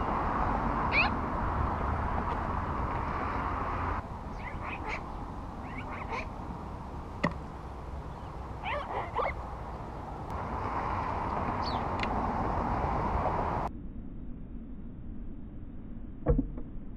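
Magpie close to the microphone giving short, thin calls that rise and fall in pitch, spaced out over several seconds. A sharp tap comes about halfway through, and a louder thump near the end as the bird flaps its wings, all over a steady background noise.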